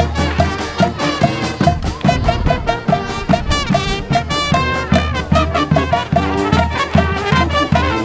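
Brazilian street brass band playing live: trombones and other horns over a steady drum beat.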